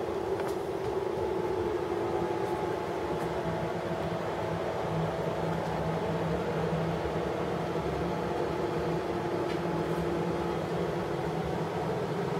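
Oxyhydrogen (HHO) welding station running with a steady hum: a low drone with a few held tones and no breaks.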